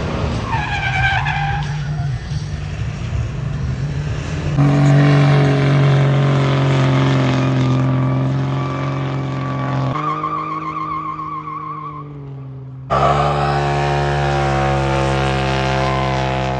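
Car engines held at high revs during burnouts, with tires squealing, in several clips that change abruptly about a third of the way in, about two thirds in and near the end.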